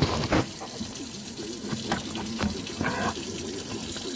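A phone being handled and set in place: scattered knocks and rubbing on the casing, over a steady rushing hiss like running water.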